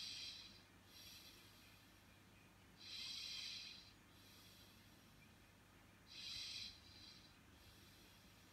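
Slow, regular breathing close to the microphone, a soft hissy breath about every three seconds, over near silence.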